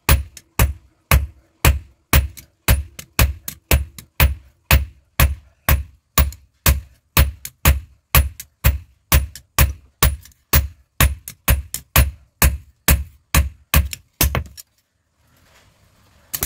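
Hand hammer forging a red-hot steel blade for a curved kitchen knife on an anvil block: a steady run of ringing blows, about two a second, that stops near the end for a short pause.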